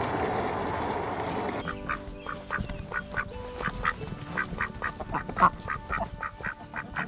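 White domestic ducks quacking in a run of short, repeated quacks, about three a second, starting about a second and a half in after a steady noise.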